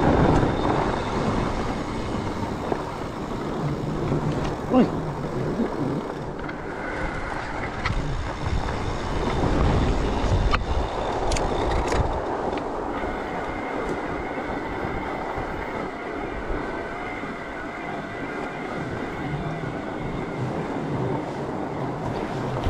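Fat bike ridden over packed snow: steady rolling and rattling noise from the tyres and bike, with a knock about five seconds in and a few sharp clicks around ten to twelve seconds.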